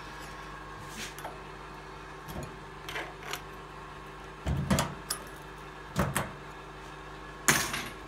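Clanks and rattles of a rusty metal toolbox being forced open: a string of separate knocks and scrapes, the loudest about four and a half and seven and a half seconds in.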